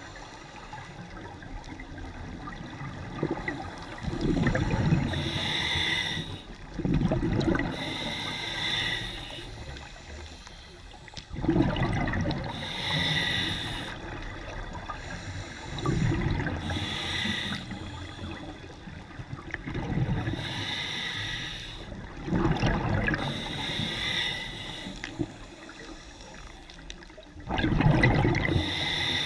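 A scuba diver breathing through a regulator underwater: bursts of bubbling exhaled air alternate with the regulator's hiss on each inhale, one breath about every four seconds.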